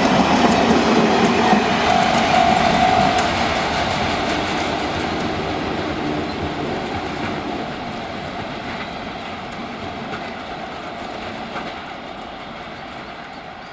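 Freight train of two-axle Wam 80000 covered wagons rolling past, the wheels clacking over the rail joints, with a steady high tone for the first three seconds. The sound fades steadily as the train draws away.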